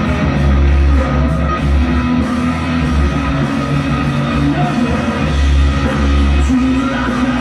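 Live rock band playing loudly on electric guitar, bass guitar and drums, a full and steady wall of sound with a heavy low end.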